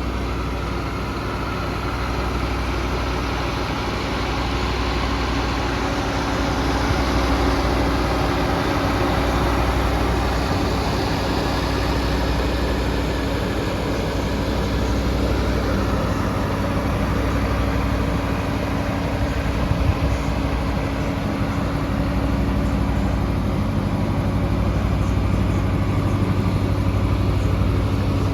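Bobcat E10Z mini excavator's engine running steadily with a constant hum, with a brief knock about two-thirds of the way through.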